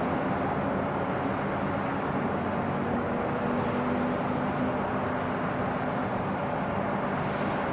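Jet engine noise from the HAL Tejas's General Electric F404 afterburning turbofan, holding steady at one level with a faint low tone running through it.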